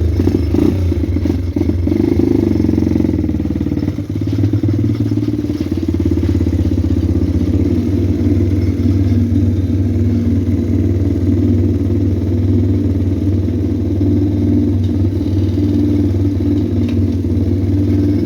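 Pit bike engine running at a fairly steady speed, loud and close, with a brief dip in level about four seconds in.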